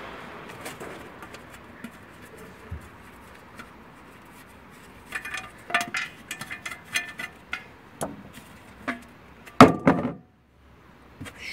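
Tools and small metal parts clinking and rattling as they are handled and rummaged through, with a louder knock near the end.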